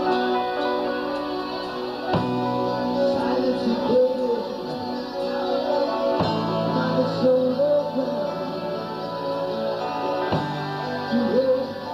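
Live rock band music led by an electric guitar playing a lead line of bent, wavering notes over sustained chords and bass, the chord changing about every four seconds.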